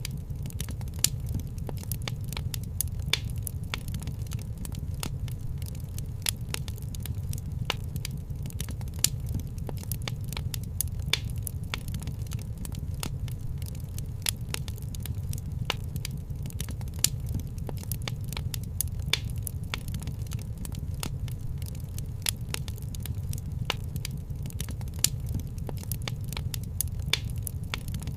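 Fireplace crackling, with frequent irregular sharp pops over a steady low rumble.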